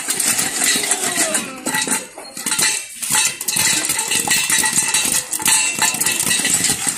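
Popcorn kernels popping fast and densely inside a covered stainless-steel pot, the pops clinking against the metal lid. The popping thins out briefly near the middle, then picks up again.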